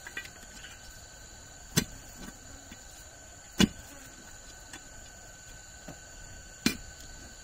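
Three sharp knocks, like tool blows during building work, two to three seconds apart. Under them runs a steady high-pitched whine.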